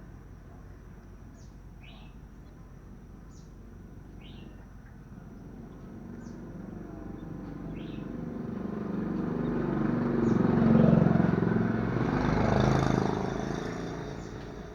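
A young iora gives short rising chirps about once a second. Passing road traffic then swells over them, loudest about three-quarters of the way through, and fades near the end.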